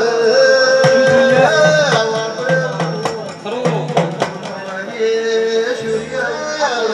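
Live Gujarati devotional folk music: a singer's held, sliding notes over quick drum strokes.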